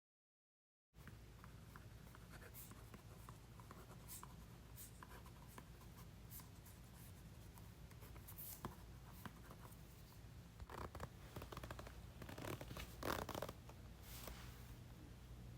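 Writing on paper: faint scratching strokes, with louder scratchy runs of strokes in the last few seconds.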